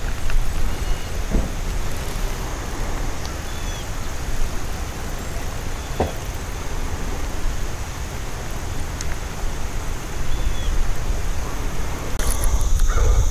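Steady outdoor background noise: a low, unsteady rumble under an even hiss, with one faint click about six seconds in.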